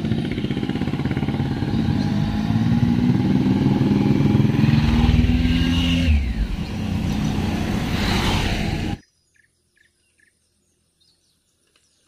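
Motorcycle engines riding past on a curving road, growing louder as they come closer with the engine note rising a little, loudest about five to six seconds in. The sound cuts off suddenly about three-quarters of the way through, leaving near silence with a few faint chirps.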